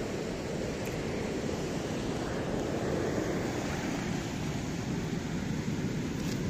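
Steady outdoor rushing noise with no distinct events, the kind of even rush that wind over the microphone or moving river water makes.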